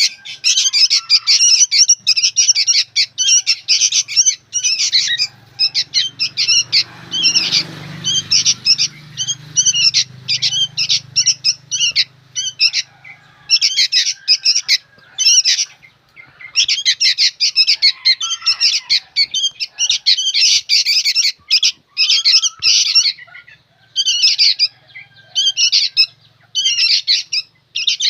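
Young sooty-headed bulbuls (kutilang) calling noisily: rapid, high chirps in dense runs broken by short pauses.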